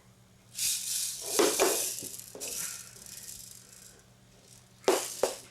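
Rattling, as of a small object being shaken: a long bout of rattling early on, then a brief sharp rattle near the end.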